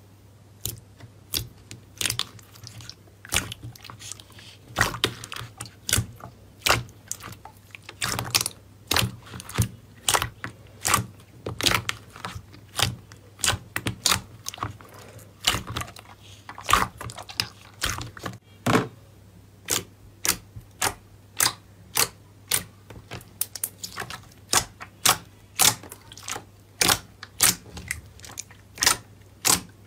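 Thick pink slime being pressed, kneaded and stretched by hand, giving a run of short, sharp wet pops and clicks as air pockets burst. The pops come faster and more evenly in the second half.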